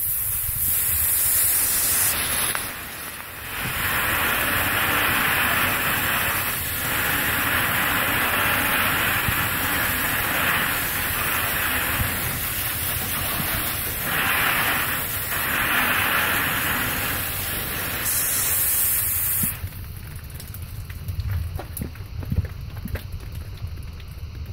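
A jet of liquid spider-web remover hissing as it sprays and spatters against a corrugated metal ceiling and painted board walls. There is a short break about three seconds in, and the spray stops about twenty seconds in, leaving only faint taps.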